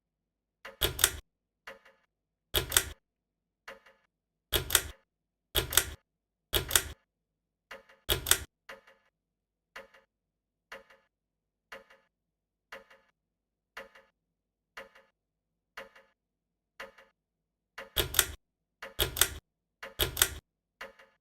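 Hampton Bay Princeton ceiling fan running with a regular click about once a second. Some clicks are much louder and come as quick double knocks, in a run over the first eight seconds or so and again near the end.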